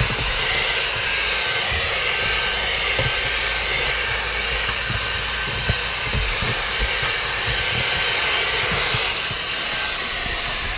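Dyson handheld vacuum cleaner running steadily, with a high-pitched motor whine over a rush of air and scattered low knocks.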